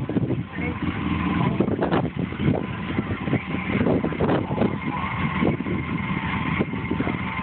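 Polaris RZR 4 800 side-by-side's twin-cylinder four-stroke engine running at idle while parked, with an uneven, pulsing sound.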